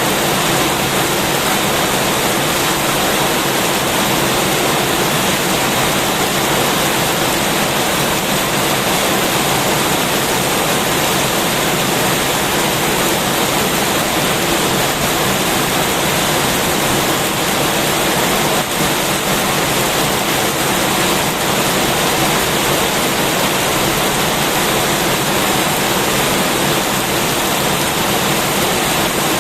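Heavy rain falling steadily, a dense, even hiss that does not change.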